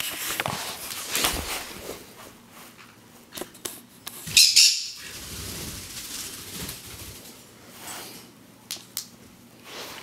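Green-cheeked conures startled into flight, wings flapping in flurries, with a brief loud squawk about four and a half seconds in.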